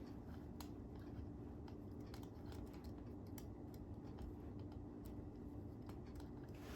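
Irregular small clicks and taps of tripod parts being handled and fitted together, over a steady low hum.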